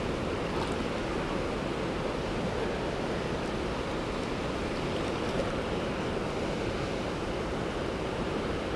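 Steady rush of flowing stream water, an even noise without breaks.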